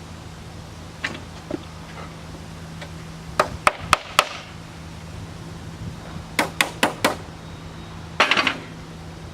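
A hammer tapping on sheet metal in quick groups of about four strikes, with a short flurry of taps near the end.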